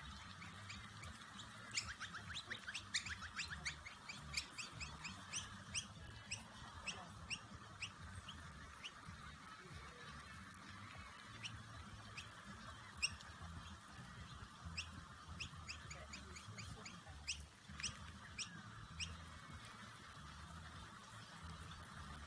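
Small birds chirping: short, sharp high calls, scattered and sometimes in quick runs, over a faint steady hiss.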